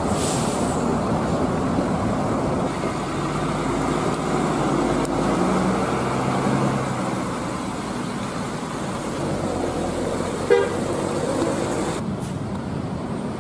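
Large coach buses driving past, engines running over steady road noise, with horn toots.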